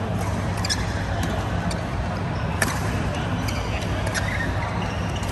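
Busy badminton hall: a steady low rumble with sharp clicks of rackets striking shuttlecocks, the loudest about two and a half seconds in.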